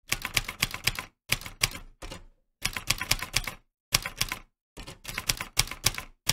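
Typewriter sound effect: quick runs of key clicks in several bursts, each separated by a short pause.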